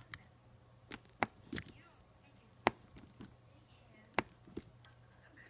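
Slime being squeezed and poked, giving a string of short sharp sticky pops and clicks at irregular intervals.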